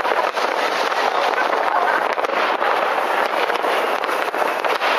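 Many fireworks going off at once: countless bangs and crackles blurring into one steady din.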